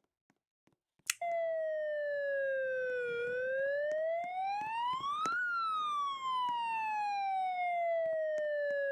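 A single siren-like sliding tone: it begins with a click about a second in, falls slowly, rises to a high peak about five seconds in, then slowly falls again.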